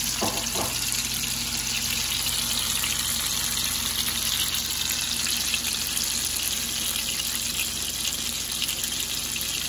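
Hot oil sizzling steadily in a frying pan around a bread roll dipped in red guajillo chile sauce as it fries.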